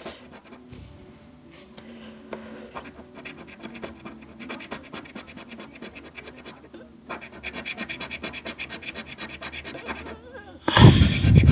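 A 1916 Canadian one-cent coin scratching the coating off a paper lottery scratch ticket, faint at first, then louder in quick, even strokes several times a second in the second half, ending with a brief loud burst near the end.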